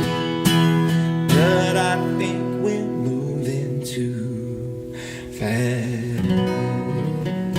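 Acoustic guitar strumming chords in a live band cover of a pop song.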